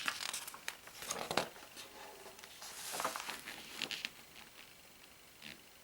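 Paper rustling and crinkling in short bursts as a big magazine is turned around and its pages handled. It dies away over the last couple of seconds.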